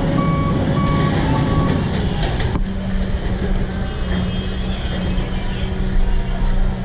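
Fire truck engine running, with a few short, repeated high warning beeps over it in the first second or so. About two and a half seconds in the sound changes suddenly to a steady engine hum.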